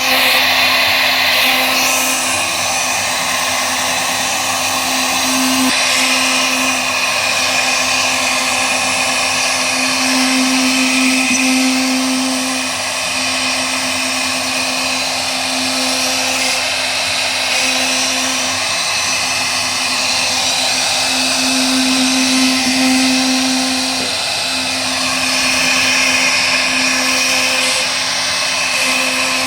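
CNC wood router's spindle running and cutting. It makes a steady high whine over a dense cutting hiss that swells and eases every few seconds as the load changes.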